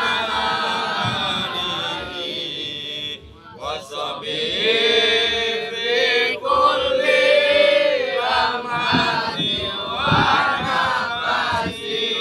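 Young male voices chanting Islamic sholawat in Arabic together, unaccompanied, in long drawn-out wavering phrases with a short break about three seconds in.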